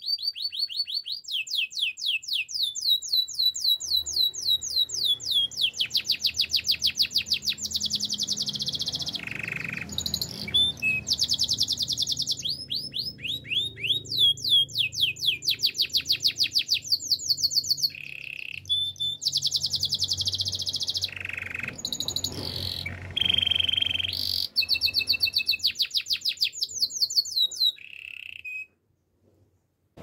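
Domestic canary singing a long song of fast trills and rapid repeated high notes, broken by a few lower held whistles and short pauses. The song stops shortly before the end.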